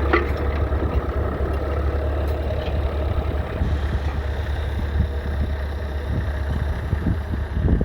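1966 McCormick 434's 2.5-litre four-cylinder diesel engine running steadily.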